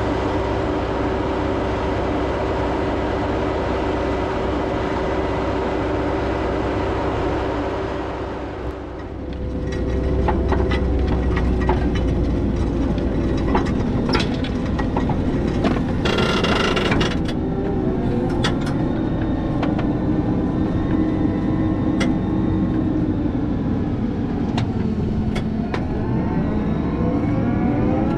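Fendt 828 Vario tractor pulling a Grimme GL 32B potato planter through the field, its engine a steady drone. Partway through, the sound shifts to the planter's ground tools working the soil, with frequent clicks and rattles over the engine and a brief rushing noise about halfway. The engine pitch drops and then rises again near the end.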